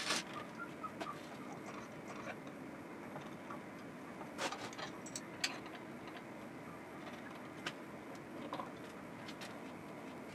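A few faint clicks and light knocks, scattered and irregular, from angle clamps being readjusted on a glued plywood corner joint, over a low steady background hiss.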